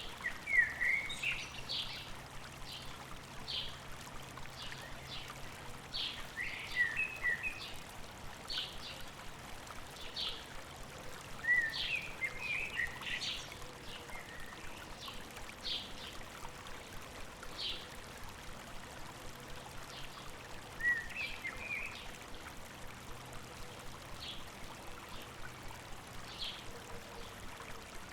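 Small river or stream running and trickling steadily, with a songbird giving short warbling phrases four times and scattered sharp high chips between them.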